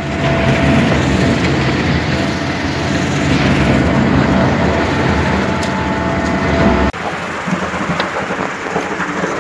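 Concrete mixer truck's engine running steadily. It cuts off abruptly about seven seconds in, and a quieter, more uneven running noise follows.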